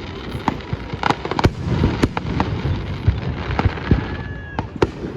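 Aerial fireworks display: a rapid series of sharp bangs from bursting shells over continuous crackling.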